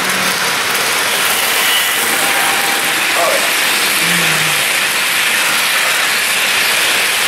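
Model freight train running past close by: a steady rush of its wheels rolling on the track and its cars rattling.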